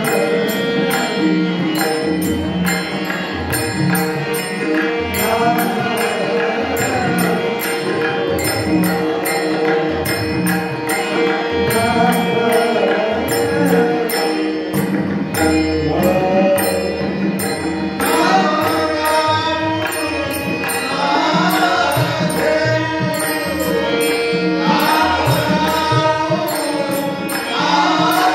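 Devotional bhajan: male voices singing over held harmonium tones, kept in time by a steady percussion beat. The singing grows louder and fuller past the middle.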